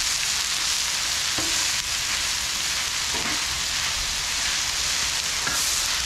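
Shredded cabbage and ground beef sizzling on a hot Blackstone flat-top griddle in a steady hiss, with a few short scrapes of metal spatulas on the griddle.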